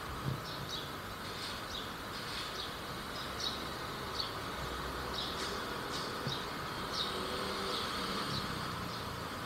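Steady background hum with short, high chirps scattered irregularly throughout.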